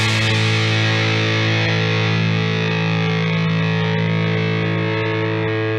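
Background music: a distorted electric guitar chord held and slowly fading.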